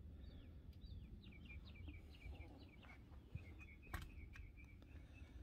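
Faint birdsong: a small bird sings a long run of quick chirps, first a few falling notes and then a rapid string of repeated notes. A single sharp click comes about four seconds in.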